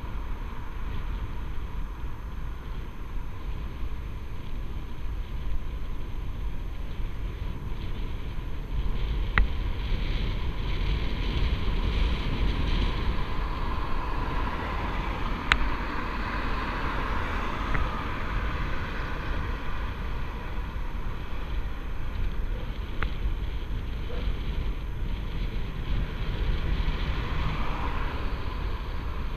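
Wind buffeting the microphone of a bicycle-mounted action camera while riding downhill, over steady tyre and road noise. A few sharp clicks stand out about a third, halfway and three quarters of the way in.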